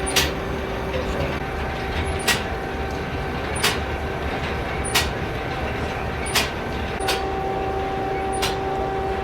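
A sharp mechanical click repeating steadily about every second and a half, over a steady hum.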